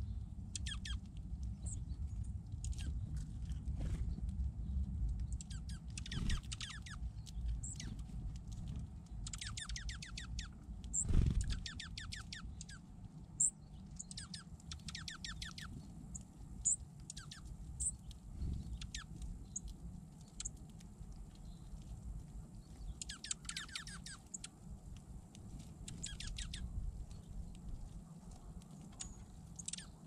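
Small songbirds at a seed feeder: scattered short, high chirps and runs of rapid ticking a second or so long, over a low steady rumble.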